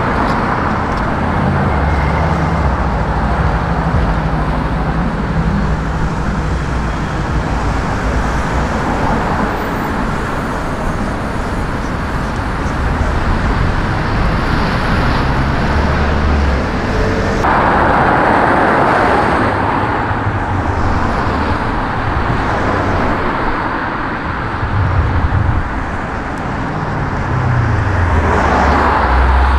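Street traffic: car engines running and vehicles driving past over steady road noise, with a louder vehicle passing about two-thirds of the way through and an engine note falling near the end.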